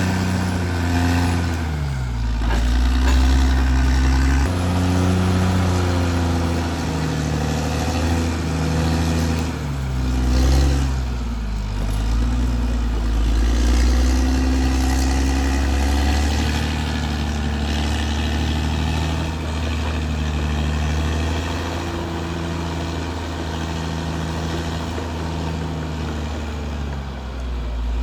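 Caterpillar D6R XL bulldozer's diesel engine running under working load, its pitch sagging and climbing back several times, about two seconds in, around ten to twelve seconds and near the end, as the blade takes and sheds load.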